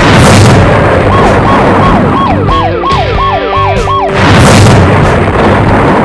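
Cartoon sound effects over a rock music bed: a loud crash at the start, then a police siren sweeping up and down in quickening cycles from about a second in to about four seconds. A second loud crash follows at about four seconds, as the rock monster breaks apart into boulders.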